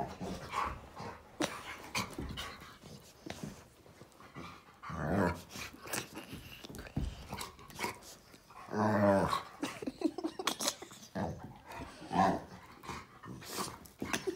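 Dog growling in short irregular bursts while spinning after its own tail, the longest and loudest growl about nine seconds in.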